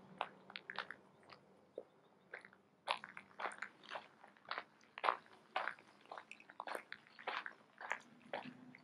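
Footsteps crunching on a gravel path: a string of short crisp crunches, about two steps a second.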